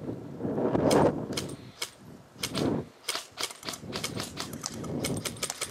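Airsoft guns firing: irregular snapping shots, several a second, with quick runs of shots about three and five seconds in. Rustling and thumping of movement near the microphone is loudest about a second in.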